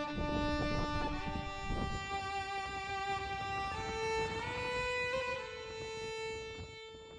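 Background music: a bowed violin playing long, held notes that change pitch every second or two.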